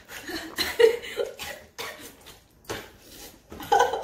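People eating spicy noodles fast, with coughing and utensils clinking against bowls in irregular bursts.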